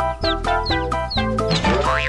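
Upbeat background music, with short plucked-sounding notes about four a second, each topped by a quick falling chirp. A warbling, wavering sound effect comes in near the end.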